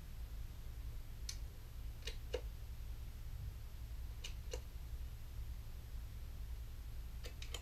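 Faint scattered clicks of controls on an effects pedalboard being handled and set, several coming in close pairs, over a low steady hum.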